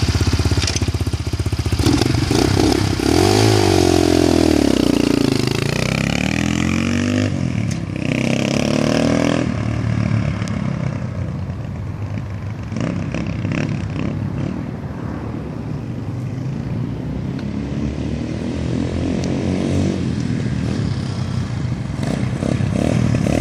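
Apollo DB36 250cc four-stroke single-cylinder dirt bike engine revving and pulling away through the gears, its pitch climbing and dropping with each shift. It then grows quieter as the bike rides off and gets louder again as it comes back near the end.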